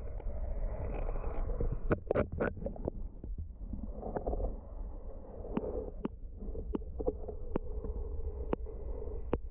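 Underwater sound picked up by a submerged camera in shallow water: a steady low rumble with about ten sharp clicks scattered through.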